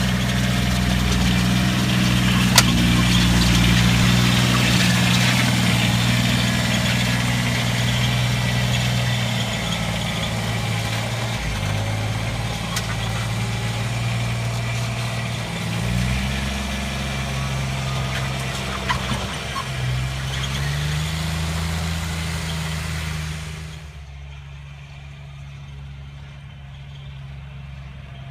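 Polaris Ranger diesel UTV on rubber tracks driving through snow, its engine running with the revs shifting up and down. A rushing noise rides over the engine until about 24 seconds in, when it drops away and the engine goes on more quietly.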